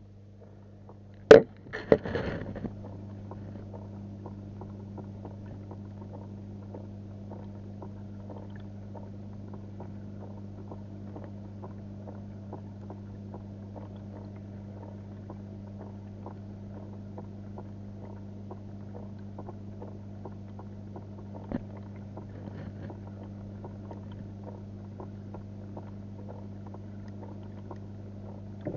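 Muffled, steady low hum picked up by a cheap action camera's microphone sealed in its waterproof case while it is submerged in a fish tank. A sharp knock about a second in, followed by a brief rustle.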